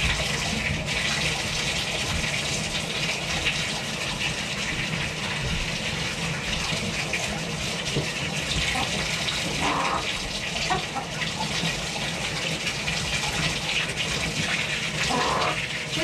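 Bathtub tap running steadily, water pouring and splashing over a hen and gloved hands in the tub.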